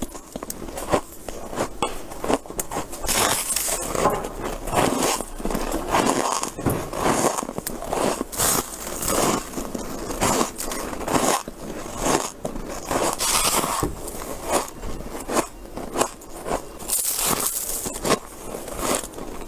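Freezer frost bitten and chewed close to the microphone: a continuous run of squeaky, crunchy bites and chewing crackles.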